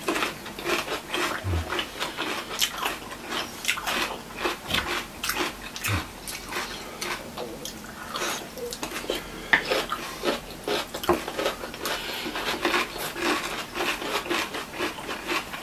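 Close-miked eating sounds: irregular wet chewing, smacking and slurping of chow mein noodles, with crunches of raw cucumber slices being bitten.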